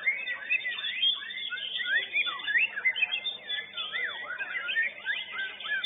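White-rumped shamas (murai batu) singing in competition: a dense run of fast whistles and trills that sweep up and down, with several songs overlapping.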